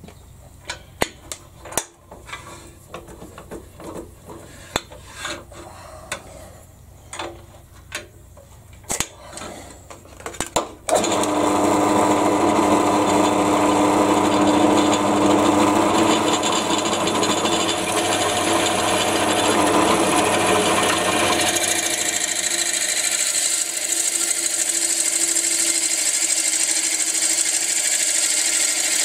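Scattered clicks and knocks as a drill bit is fitted and tightened in a pillar drill's chuck. About eleven seconds in, the pillar drill starts suddenly and runs steadily with a 25 mm bit, boring down into a wooden blank.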